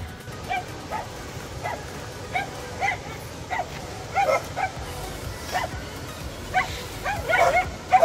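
A dog barking repeatedly in short barks, roughly one or two a second, coming thicker toward the end.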